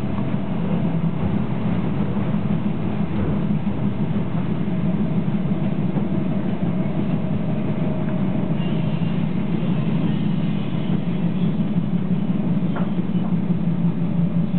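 Steady running noise inside the passenger saloon of a moving DR1A diesel multiple unit: a continuous low drone of engine and wheels on rails, with a couple of faint clicks near the end.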